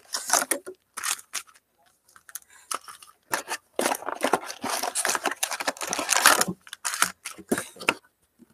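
Plastic wrapping on a box of trading cards being torn open, with crinkling and handling clicks. The tearing is densest for about three seconds in the middle.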